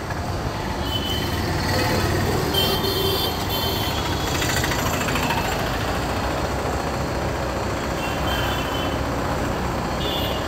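Steady rumble of a scooter ride through city traffic, engine, tyre and wind noise together, with several short high horn beeps from the surrounding traffic.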